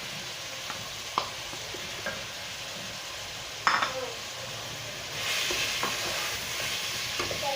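Stew pot sizzling as garlic-ginger paste is stirred in with the frying meat and potatoes, with a few short spoon scrapes against the pot. The sizzle grows louder about five seconds in.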